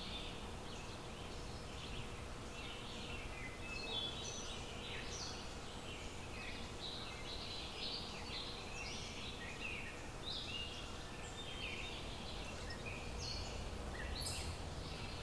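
Birds calling, many short high chirps and calls overlapping one another, over a low steady rumble.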